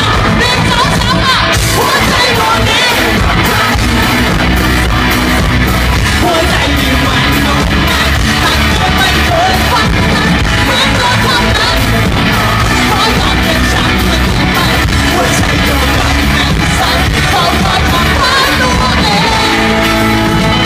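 Live rock band playing with drums and a male lead singer, loud and steady, heard from within the audience in a large hall.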